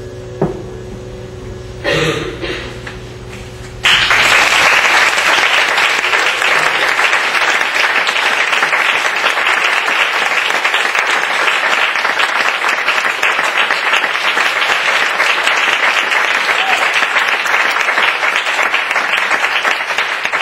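Audience applause that breaks out suddenly about four seconds in, as the music's last held tones stop, and carries on steadily.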